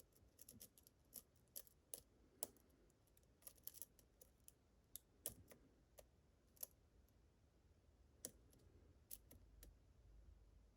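Faint, irregular clicks and light scrapes of a lock pick working the pins of a Medeco-style challenge lock, the ticks coming thickest in the first several seconds and thinning out toward the end.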